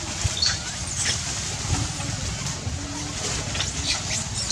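Outdoor ambience: a steady low rumble with scattered short, high chirps.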